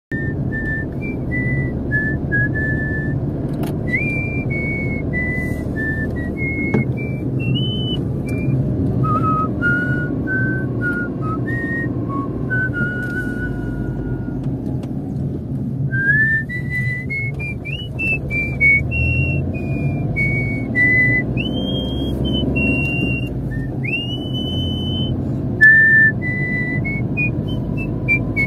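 A tune whistled note by note, some notes sliding up into pitch, over the steady low rumble of a slowly moving car.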